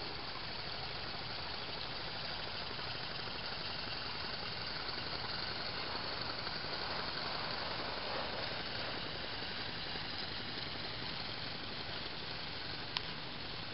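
Small coal-fired Regner Willi live-steam locomotive with a vertical boiler running through snow, giving a steady hiss of steam and exhaust. One sharp click near the end.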